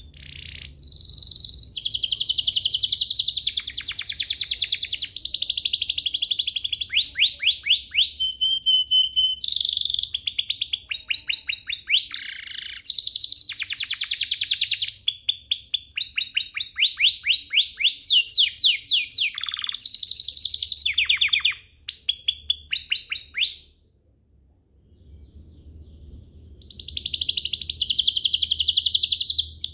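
Domestic canary singing a long, non-stop 'gacor' song of fast trills and rapid repeated high notes. It breaks off for about a second and a half near the end, then starts again. This kind of song is played as a lure to set other canaries singing.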